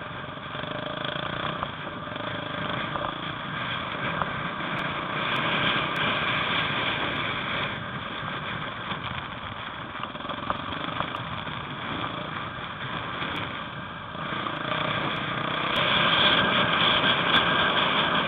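Enduro motorcycle engine running under way on a rough dirt track, heard from on board the moving bike. It gets louder twice as the throttle opens, about four seconds in and again near the end, with a few sharp ticks over it.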